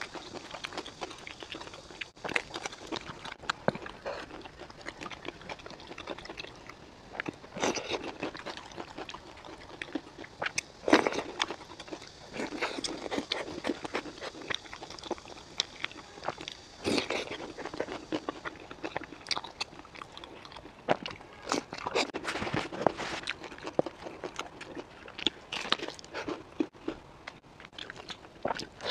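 Eating sounds: crunchy bites into sesame-crusted pumpkin pastries topped with biscuits, then chewing, with irregular crunches and mouth clicks.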